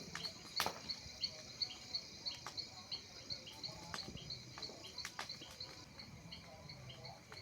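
Insect chirping steadily, about three high chirps a second, with a few scattered sharp pops.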